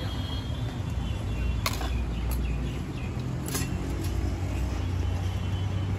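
Street traffic rumbling steadily, with four sharp clicks near the middle.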